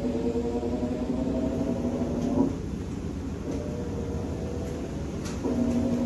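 Hitachi 7 kg top-loading washing machine running through its wash, its motor giving a steady whine in spells as the drum is driven: the whine stops about two and a half seconds in and starts again near the end, over a low rumble.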